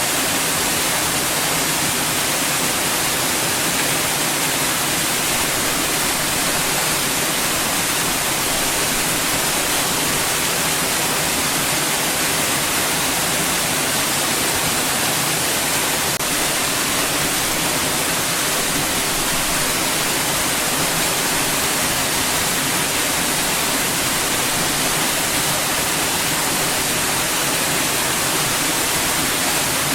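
Steady white noise: an even, unbroken hiss weighted toward the high end, with a faint low hum underneath.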